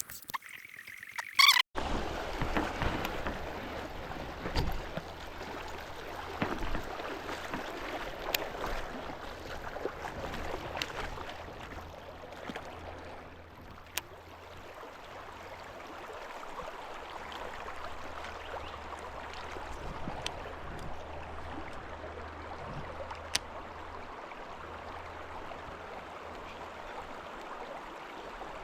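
Steady rush of flowing river water, with scattered light clicks on top.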